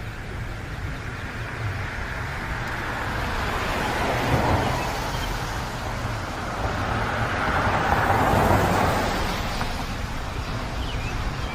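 Road traffic going by, with a steady low rumble and two vehicles passing, loudest about four and eight and a half seconds in.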